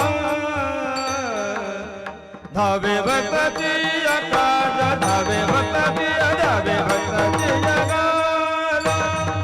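Warkari kirtan music: a sustained melody over mridang drumming. The music drops away briefly about two seconds in, then picks up again.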